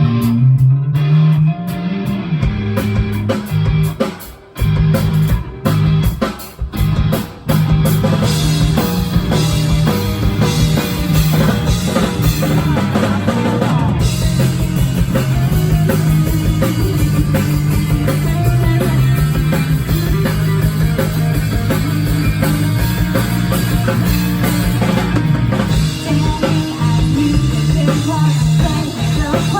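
Live rock band playing an instrumental passage on drum kit, electric guitar and bass. For the first several seconds it goes in stop-start accented hits with short breaks, then the full band plays on continuously.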